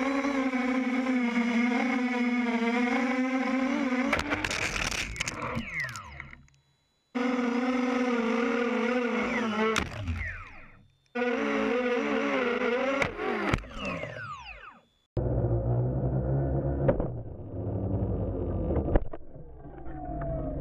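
QAV250 racing quadcopter's motors and propellers buzzing at a high pitch that wavers with the throttle, heard through its onboard camera. About four seconds in, again near ten and near thirteen seconds, it crashes with a clatter and scraping while the motors wind down in a falling whine, and each time the sound cuts off suddenly. In the last few seconds there is a low rumble with a few sharp knocks.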